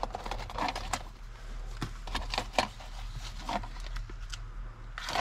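Scattered clicks, knocks and light clatter of small items being rummaged through in a car's storage compartment.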